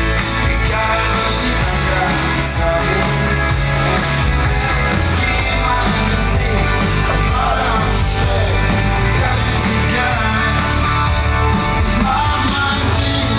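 Live rock music with a singer and guitars, played loud over a PA sound system.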